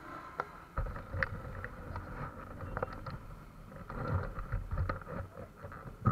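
Motorcycle engines running at low speed, with a steady hum and low rumble. Frequent short knocks and bumps sound through it, the loudest right at the end.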